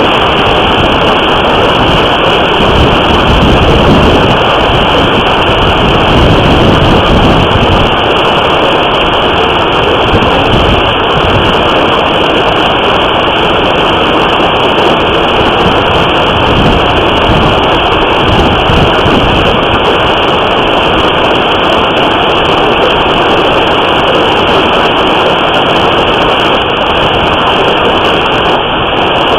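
Hailstorm: a dense, continuous, loud roar of hailstones pounding a house, vehicles and the ground, with low gusts of wind rumbling on the microphone, heaviest in the first several seconds.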